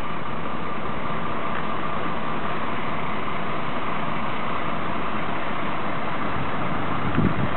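Fire engines' diesel engines idling, a steady even running sound.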